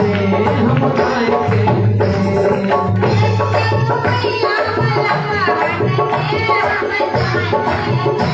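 Live Hindi devotional song (bhajan) music: a hand drum keeping a steady rhythmic beat under a keyboard melody.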